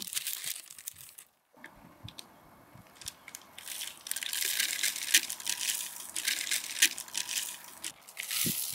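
Brown parchment paper crinkling and rustling in irregular bursts as raw meat is lifted and turned on it, with a quiet stretch of a second or two near the start and a few soft thumps near the end.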